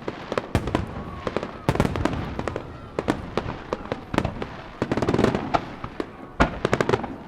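Aerial fireworks bursting: many sharp bangs at irregular intervals, several a second, mixed with crackling.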